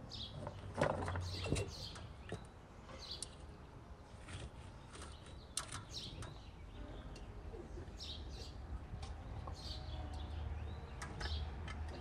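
Sliced carrots and chopped greens being dropped and packed by hand into a large glass jar, with scattered light taps and rustles. Birds chirp briefly now and then in the background.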